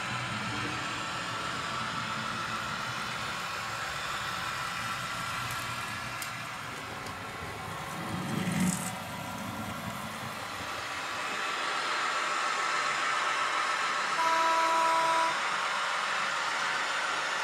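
Kaluga rail vehicle's diesel engine running steadily, with a short louder noise about eight seconds in. A horn sounds once for about a second near the end.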